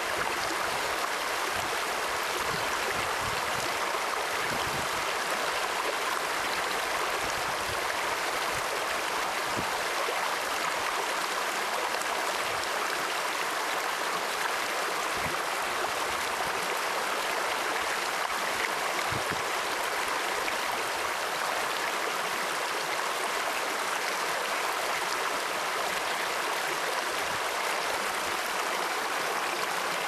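Steady rushing of flowing water, an even unbroken hiss with no pauses.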